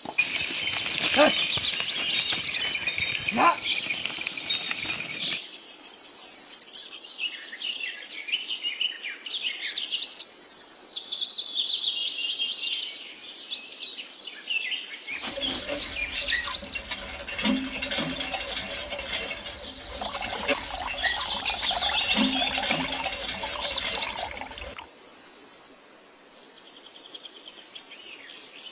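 Small birds chirping and singing in quick, high calls, the sound changing abruptly a few times.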